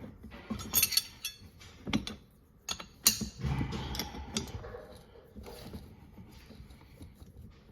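Metal parts and hand tools clinking and knocking as a tow bar is handled during reassembly: a few sharp metallic clicks about one, two and three seconds in, then some scraping and handling noise.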